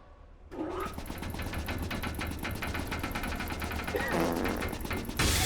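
Cartoon sound effect of a stuck machine rattling with fast, even clatter, and a louder rush of noise near the end as it frees up.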